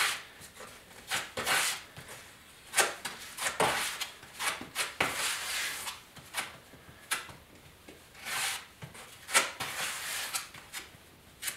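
Spreader scraping and smearing two-part glazing putty mixed with hardener on a mixing board, in a run of short, uneven scraping strokes.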